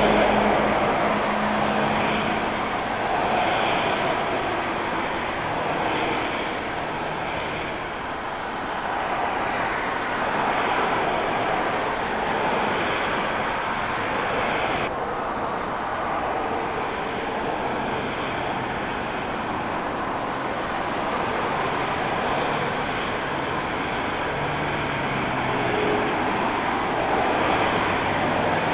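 Twin-engine jet airliners taxiing at idle thrust, a steady whooshing engine rumble. The sound changes abruptly about halfway through.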